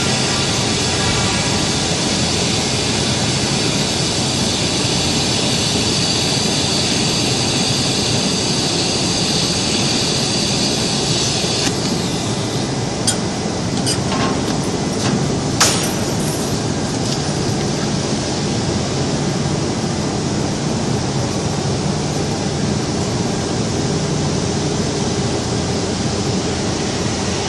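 Steady loud noise of industrial machinery with the high hiss of a TIG welding arc over it; the hiss cuts off about twelve seconds in, and a few sharp metallic clinks follow.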